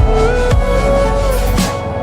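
Background electronic music with a heavy sub-bass, gliding synth notes and a strong beat.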